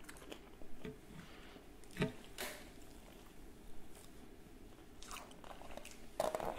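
Quiet chewing and mouth sounds of people eating, with a few faint short clicks and smacks.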